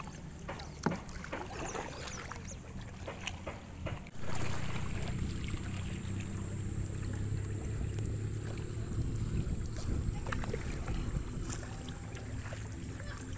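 Kayak paddling on a river: short splashes of paddle strokes and water slapping the hull, then from about four seconds in a louder, steady rush of moving water and wind.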